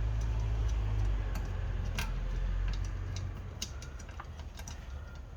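Scattered light metallic clicks and taps as Honda Civic transmission gears and parts are handled and set into the case, over a low hum that fades about three seconds in.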